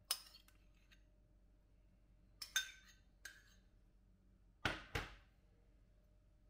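Kitchenware clinking and knocking: a sharp, briefly ringing clink at the start, a few more clinks around the middle, and two heavier knocks close together about five seconds in.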